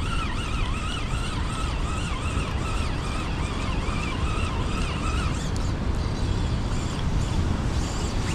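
A siren-like warbling tone, its pitch rising and falling about twice a second, stops about five seconds in. A steady low rumble runs under it throughout.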